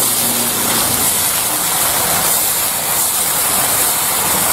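Khanom khrok batter sizzling in a hot, many-cupped pan as it is poured in from a kettle: a steady hiss.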